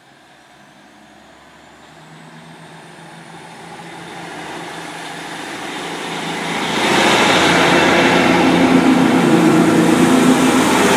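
Class 150 Sprinter diesel multiple unit pulling away from the station. Its underfloor diesel engines grow steadily louder over the first seven seconds, then hold loud as the train goes by.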